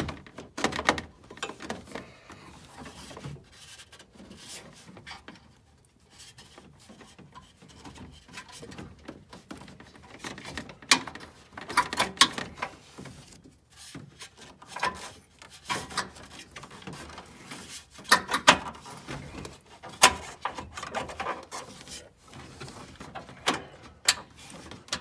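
Hands working transmission-cooler hoses and their adapter fitting into place through a tight gap behind a car's front grille: irregular rubbing, clicks and knocks, the sharpest knocks in the second half.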